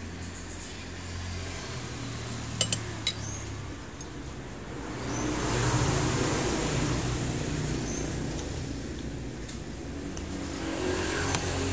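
A motor vehicle passing on the road, its noise swelling up about five seconds in and fading away over the next few seconds, over a steady low hum. Two sharp clinks of cutlery come about two and a half to three seconds in.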